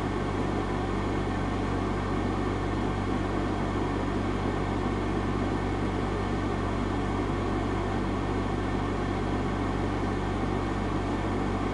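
Steady low hum with a constant hiss over it, unchanging in pitch and level.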